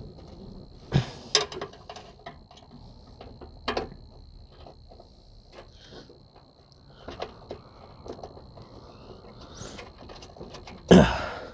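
Scattered metal clicks, taps and clanks of hand tools and a bolt being worked at a radiator mounting bracket to line up the threads. There are a few louder knocks, the loudest about a second before the end.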